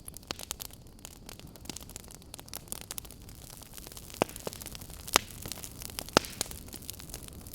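Wood fire crackling: irregular sharp snaps over a steady low rushing noise, with a few louder pops about four, five and six seconds in.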